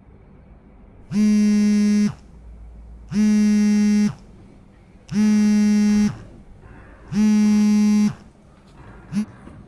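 Electronic buzzer sounding four times, each buzz about a second long with a second's gap between, then one short blip near the end: the alarm of a wearable bruxism monitor, signalling teeth grinding.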